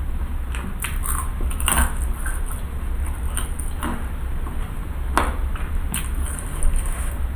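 Close-miked chewing of cireng, chewy fried tapioca fritters filled with shredded chicken: scattered short mouth clicks and chewing noises every half second or so, over a steady low hum.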